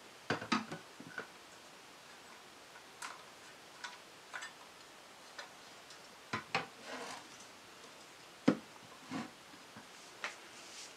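Scattered clicks and knocks of a corded circular saw being handled and adjusted by hand: its plastic guard, lock levers and base plate clicking and tapping as it is set to full depth and its shoe checked for flatness, with one sharper knock late on. The saw is not running.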